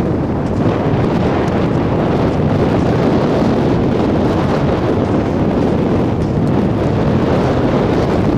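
Steady wind rushing over the camera microphone, loud and unbroken.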